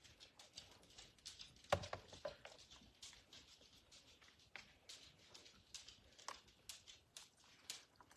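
Faint, scattered soft clicks and rustles of hands handling a large cabbage leaf and filling while rolling a cabbage roll, with one louder knock nearly two seconds in.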